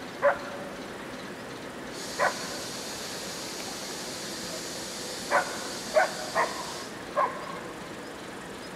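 A dog barking: six short barks at uneven intervals, several close together in the middle. A steady high hiss starts about two seconds in and stops abruptly a couple of seconds before the end.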